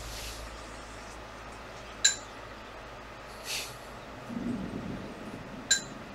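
Two short, sharp clinks about three and a half seconds apart over a steady low background hum, with a brief soft hiss between them.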